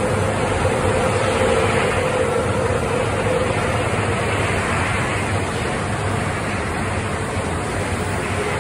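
Sapporo Municipal Subway 5000-series train, set 502, running past the platform on its rubber tyres: a steady rumble with a humming tone in the first few seconds that fades out.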